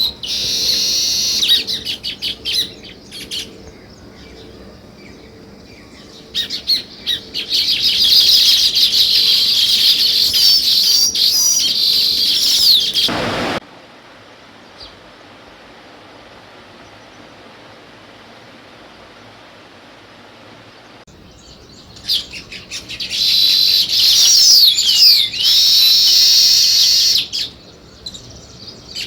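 House sparrows chirping in dense, busy bouts lasting a few seconds each, with quieter stretches between; the middle bout cuts off suddenly about halfway through.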